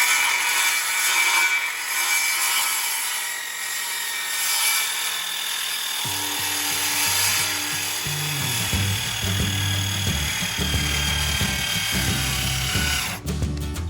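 A battery-powered power tool's motor running at speed with a steady whine, its pitch sagging slightly over time; it stops near the end. Background music with a low bass line comes in about halfway through.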